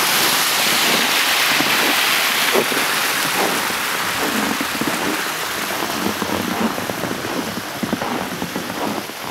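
Small waterfall in a hot spring pool, water splashing and rushing steadily in an even, rain-like noise that eases slightly after about four seconds.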